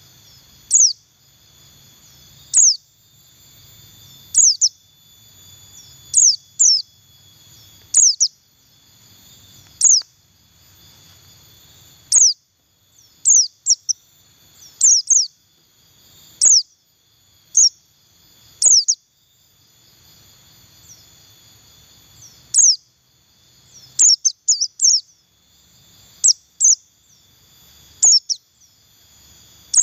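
White-eye (pleci buxtoni) giving short, high, downward-sweeping chirps, singly or in quick clusters of two to four, every second or two. This is the simple chirping that hobbyists call "ngeriwik". A steady high drone runs underneath.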